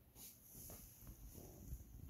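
Near silence with faint, soft rustling and sniffing from a long-haired cat nosing at a scrap of tuna.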